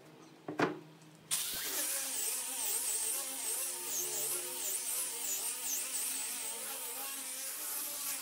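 A single knock about half a second in, then an angle grinder fitted with a sanding disc starts a little over a second in and sands a wooden tabletop: a steady motor whine under the hiss of abrasive rubbing the wood.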